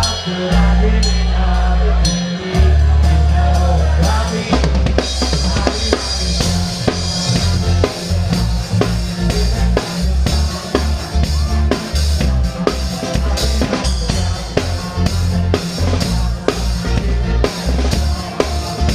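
Live band playing an instrumental passage with the drum kit to the fore: it opens on a few long held bass notes, then kick and snare drum come in with a busy, steady beat about four and a half seconds in.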